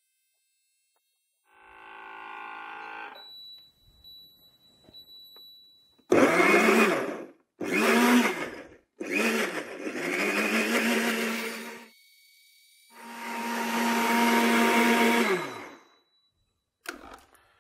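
Vidia BL-001 vacuum blenders blending bananas with water. After a quieter hum, the motors run in several short bursts and then a steadier run of about three seconds, each dropping in pitch as the motor winds down.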